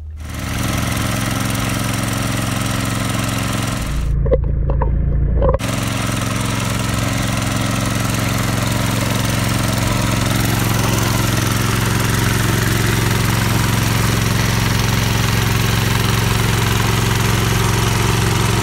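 Small engine on a floating gold suction dredge running steadily at working speed, driving the pump. About four seconds in it briefly drops to a muffled low rumble, then the steady engine noise returns.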